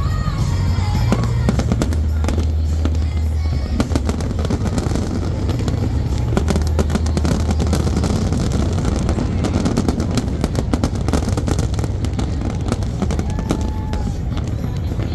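Fireworks bursting and crackling, a dense run of overlapping bangs and rapid pops, over music with a deep steady bass.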